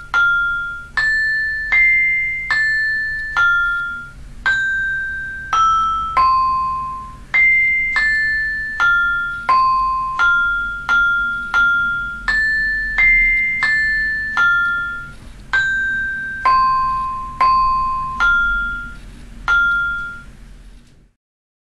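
Vibrafun tablet app playing synthesized mallet-instrument notes: a simple melody of single struck notes, about one and a third a second, each ringing briefly and fading. The notes stop abruptly shortly before the end.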